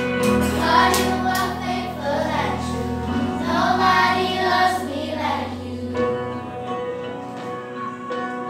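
A children's choir singing into handheld microphones, amplified through loudspeakers, over a backing accompaniment of held low notes that change about every three seconds.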